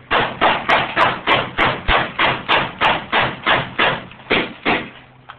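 Gas airsoft pistol fired rapidly for a speed test: a steady string of about fifteen shots, roughly three a second, stopping near the end.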